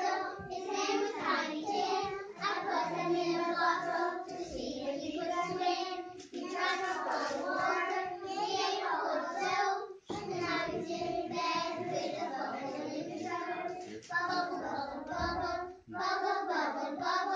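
Young children singing a song together in high voices.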